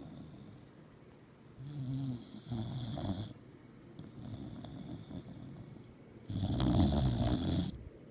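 A dog snoring in its sleep, two louder snores about two seconds in and again about six seconds in, with quieter snoring breaths between.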